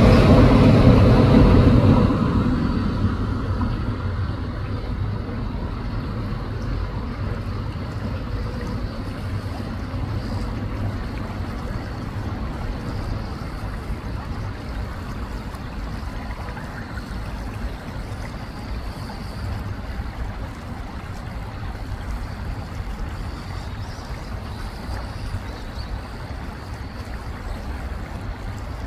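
Steady rushing of a shallow river running over stones, with a low rumble under it. A louder rumbling sound with a steady hum fills the first two seconds and fades away.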